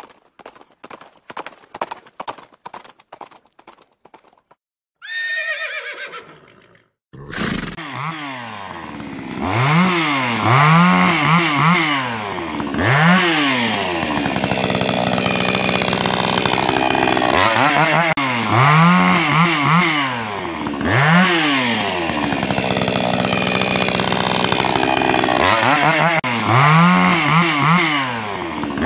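Galloping hoofbeats, then a horse whinnying about five seconds in. From about seven seconds on, a chainsaw revs up and down over and over.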